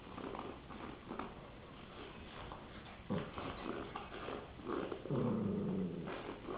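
Rottweiler puppy growling in play over a popsicle stick: short grunts and growls, with one longer growl about five seconds in.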